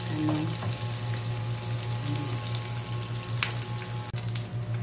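Pieces of fish sizzling as they fry in hot oil in a nonstick frying pan, stirred with a wooden spatula at the start, with a few sharp clicks.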